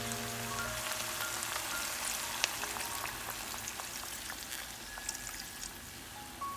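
Food frying in a pan: a steady sizzle with scattered small pops, over soft background music with a few sparse notes.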